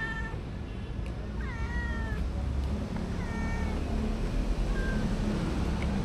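Kitten meowing: four short, high meows spaced about a second and a half apart, the last one brief, over a low steady rumble.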